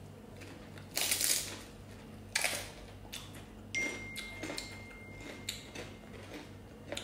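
Quiet eating sounds at a table: a short hissing mouth noise about a second in, another sharper one about two and a half seconds in, and small clicks and smacks. A faint steady high tone runs for a couple of seconds in the middle.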